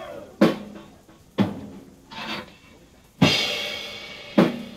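Rock drum kit in a live drum solo, heard from the audience: single heavy drum hits spaced about a second apart, with a cymbal crash about three seconds in that rings on.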